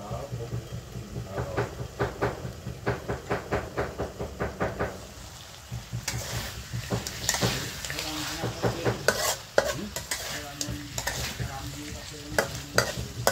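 Frog pieces sizzling in a steel wok while a metal spatula stirs them, scraping and clanking against the pan from about six seconds in. Before that, a quick, even ticking about five times a second.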